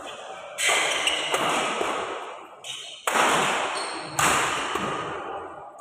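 Badminton rackets striking a shuttlecock during a fast doubles rally: three hard hits, about half a second in, at three seconds and at four seconds, plus a lighter touch just before the second. Each hit echoes in a large hall.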